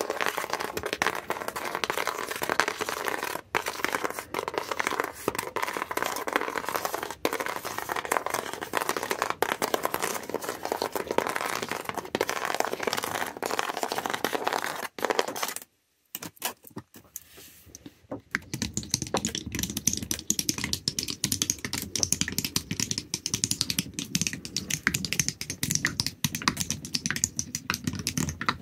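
The backs of fingernails scratching and tapping on objects, a dense crackly run of small clicks. About 16 s in it stops for a moment, and a different scratching trigger with a duller, hissier sound takes over.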